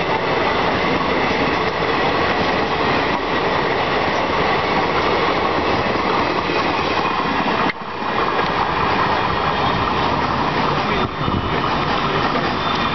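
Indian Railways passenger coaches running past close by: a loud, steady noise of wheels on the rails. It breaks off briefly about eight seconds in and again about eleven seconds in.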